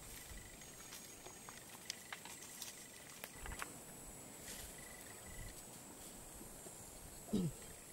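Faint scraping and rustling of sandy soil and brush as a man crawls headfirst into a porcupine burrow. Near the end comes one short, louder voice-like sound that falls in pitch.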